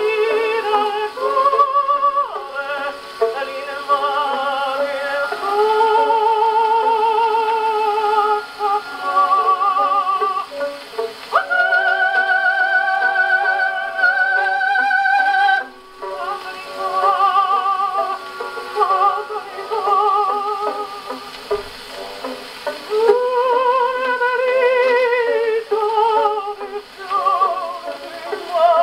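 HMV 102 portable wind-up gramophone playing a 78 rpm shellac record through its acoustic soundbox and horn: a singer with heavy vibrato, in a thin, narrow-range sound with little bass or treble.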